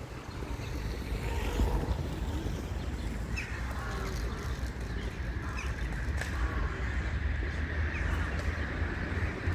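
Outdoor city street ambience: a steady low rumble of traffic with a few short bird calls. In the last few seconds a hiss builds, like a vehicle passing.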